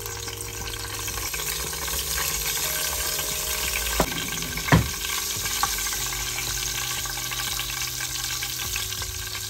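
Whole spices (cinnamon, cardamom, black peppercorns, cloves, star anise) and dried fenugreek leaves sizzling steadily in hot oil. There are two sharp knocks about halfway through, a little under a second apart.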